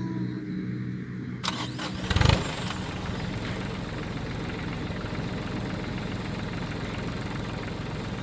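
Truck engine starting: cranking noise from about one and a half seconds in, a loud catch just after two seconds, then the engine running steadily at idle.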